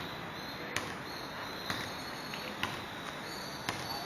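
Insects chirring in one steady high band over a background hiss, with four sharp clicks about a second apart.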